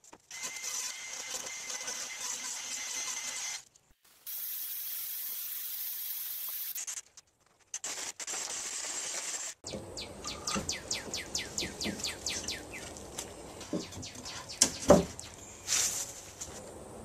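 A cordless stick vacuum running in several short stretches, a steady airy hiss with a high motor whine. Then a run of quick clicks and a few sharp knocks, the loudest about 15 seconds in.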